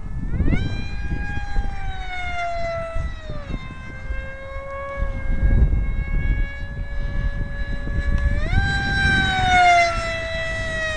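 Brushless electric motor and propeller of an RC foam F-22 jet whining in flight on a 5-cell lipo. The whine jumps up in pitch about half a second in and again near the end, then slides down each time. Wind rumbles on the microphone underneath.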